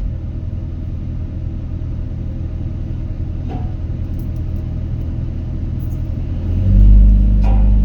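Excavator's diesel engine running low and rough, then revving back up to a louder, steady run near the end, with a couple of faint knocks.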